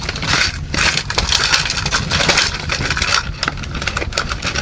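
Continuous rattling, clicking and crackling of rummaging through a plastic tackle box of small metal spoon lures.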